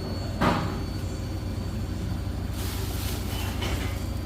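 Beko WS832425s washing machine spinning with an unbalanced load: a steady low throbbing hum from the drum, a sharp knock about half a second in, and a hiss near the end.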